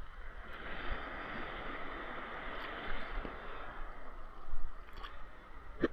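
Sea water sloshing and gurgling around a waterproof action camera's plastic housing, heard muffled through the case, with a few short knocks near the end.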